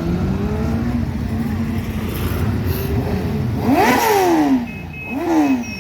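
Superbike engine running through a loud aftermarket exhaust, blipped twice: a quick rev that climbs and falls away about four seconds in, and a shorter one just after five seconds.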